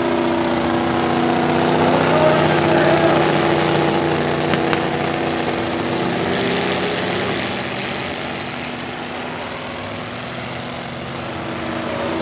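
Several race car engines running on the track at once, steady engine notes with one revving up and back down a couple of seconds in; the sound eases off for a few seconds near the end.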